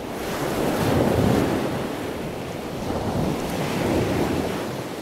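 Ocean waves surging and washing, swelling twice and easing off.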